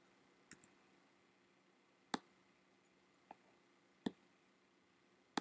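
About five separate computer mouse clicks, spaced irregularly over near silence.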